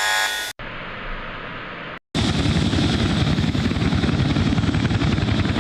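Bell UH-1 Iroquois (Huey) helicopter running, a loud steady rotor beat of rapid, even blade pulses that starts about two seconds in. Before it, an electronic alert tone ends within the first half-second, followed by a short stretch of quieter rushing noise.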